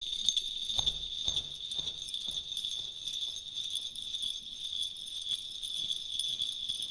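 Night insects chirring steadily in a high, continuous trill. There are a few soft thumps about half a second apart in the first couple of seconds.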